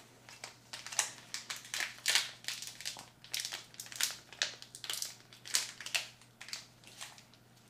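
Foil wrapper of a Pokémon Evolutions booster pack crinkling and crackling in irregular bursts as both hands grip and tug at its top seal, struggling to tear it open. The crinkling dies down near the end.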